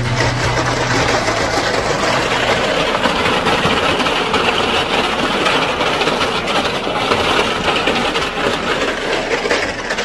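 A concrete mixer truck's diesel engine running, a steady, loud mechanical noise.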